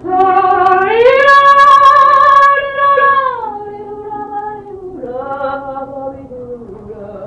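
A woman singing long sustained notes: the first glides up about a second in to a high note held for a couple of seconds, then slides down, and a second held note starts about five seconds in. Soft ambient music sits underneath.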